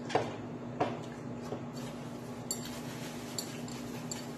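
Utensil set down against a dish: two sharp clinks about half a second apart at the start, then a few fainter clicks, over a steady low hum.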